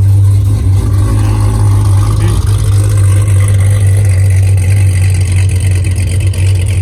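Camaro SS's cammed LT1 V8 running steadily through its aftermarket exhaust, a loud, even low drone with no revving.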